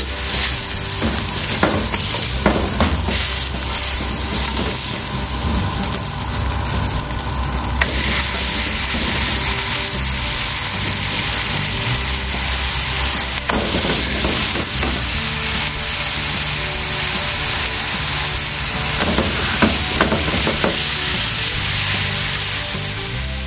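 Beef steaks searing in a hot frying pan with a steady sizzle and a few light knocks. The sizzle grows louder about eight seconds in, as another steak goes into the pan.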